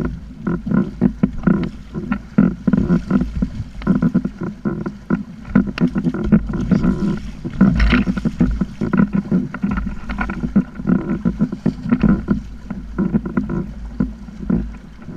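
Choppy water slapping and splashing against a plastic Hobie kayak hull under way, in many irregular knocks, with wind rumbling on the microphone.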